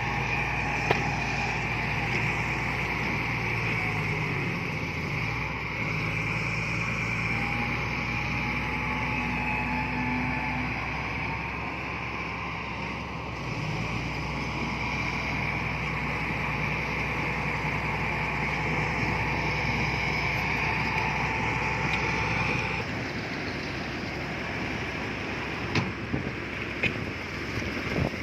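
Heavy earthmoving machine's diesel engine running steadily under work. It drops off sharply about three-quarters of the way through, and a few sharp knocks follow near the end.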